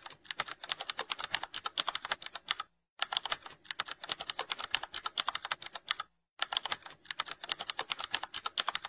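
Keyboard typing sound effect: rapid key clicks, several a second, broken by two short pauses about three and six seconds in.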